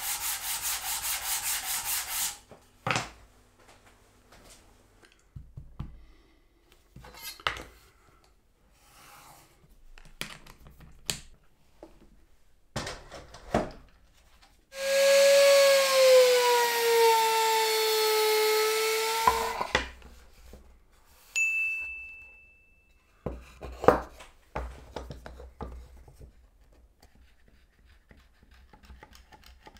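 Woodworking shop sounds. A power tool's motor runs and stops about two seconds in, then wooden pieces are handled and knocked. The motor runs again for about five seconds, its pitch sagging slightly as it takes load, and a few sharp wooden knocks follow.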